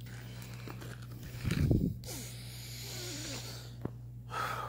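Handling noise on a handheld phone's microphone: a dull thump about a second and a half in, followed by quiet rustling.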